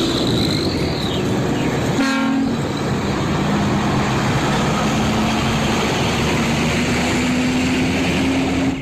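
Heavy vehicle running loudly with an air horn that sounds about two seconds in and is held until the sound cuts off suddenly. A high whine slides down in the first second.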